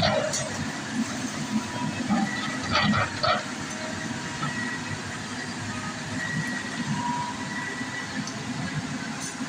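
Heavy diesel machinery running steadily with a low rumble, with a few sharp metallic clanks at the start and a cluster of them around three seconds in.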